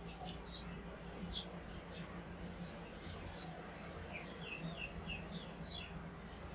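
Small birds chirping: many short, high chirps overlapping throughout, with a few quick runs of falling notes about four to five seconds in.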